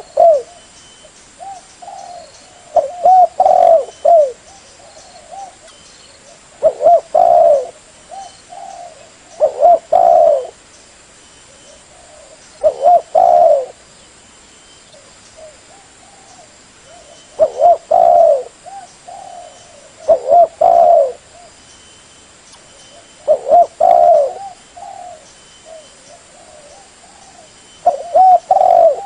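Spotted dove cooing as a lure call. A loud, pitched coo phrase comes back every three to five seconds, about nine times, with softer coos between the phrases.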